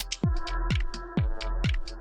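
Background electronic dance music with a steady four-on-the-floor kick drum at about two beats a second, with hi-hat ticks and held synth chords over it.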